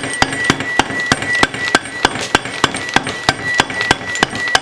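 A hammer tapping rapidly and evenly, about three or four blows a second, on a Honda Foreman 500's rear differential, driving the ring gear assembly down into its housing. The assembly is not yet fully seated.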